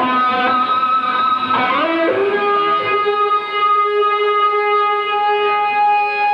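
Stratocaster-style electric guitar playing a lead line of long, sustained notes: a string bend glides the pitch up about two seconds in, and that note is then held for the rest.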